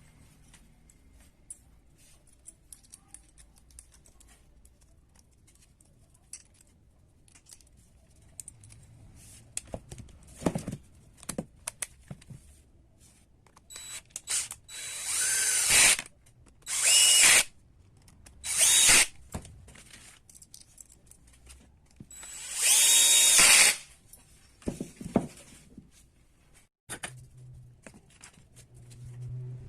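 Small clicks of parts and tools being handled, then four brief runs of a power tool's motor, each lasting about a second. The last run is the longest.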